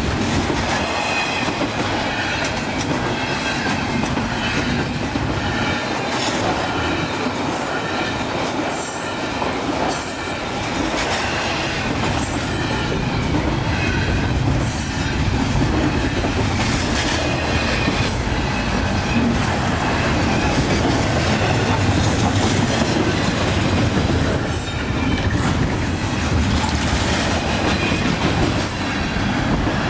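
Double-stack container well cars of a long freight train rolling past, their wheels running and clattering steadily on the rails. A faint high wheel squeal comes through at times.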